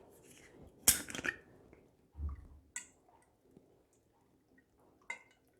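Small kitchen handling sounds while olive oil is added to a blender cup: a sharp click about a second in, a soft low thud a little after two seconds, and a few faint clicks and taps, with near silence between.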